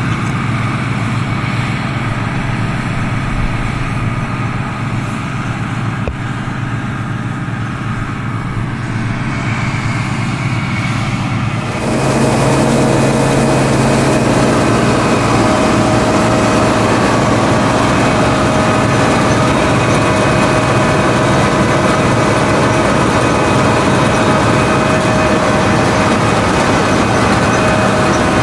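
Combine harvester running steadily. About twelve seconds in, the sound jumps suddenly louder and fuller, and a steady whine joins the engine drone.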